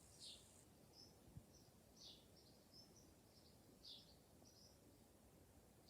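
Faint birds chirping in a tree: a short falling chirp about every two seconds, with quicker, higher notes in between.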